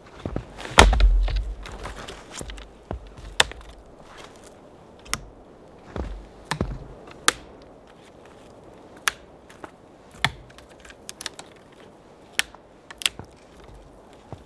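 Small dead branches and twigs being snapped by hand for firewood: irregular sharp cracks, with a heavier low thump about a second in.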